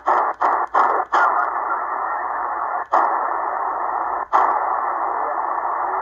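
Eton Grundig Satellit Executive shortwave receiver hissing with band noise from its speaker in lower sideband on the 40-meter band. It mutes briefly with a click at each tuning step: four quick steps in the first second, then two more about three and four seconds in.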